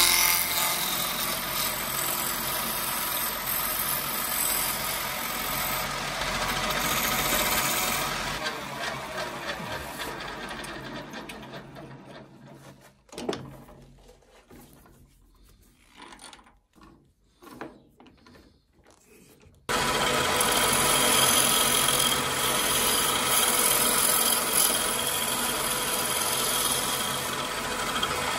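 Wood lathe spinning a small wooden cylinder while a hand-held turning chisel cuts it: a steady rasping over the motor. About eight seconds in the lathe is switched off and winds down to near quiet, with a few knocks as the chuck is handled. About twenty seconds in the motor starts again abruptly and runs steadily.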